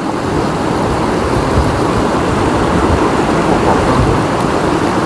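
Steady rushing of a shallow river flowing over stones.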